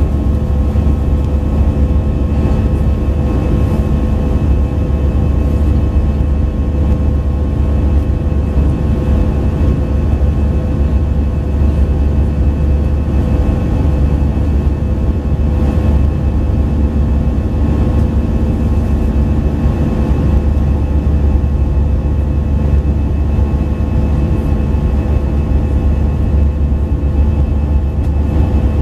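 Steady cabin noise of an Airbus A319 climbing after take-off, heard from a window seat beside the wing: a deep, even rumble of the jet engines and airflow with several steady whining tones over it.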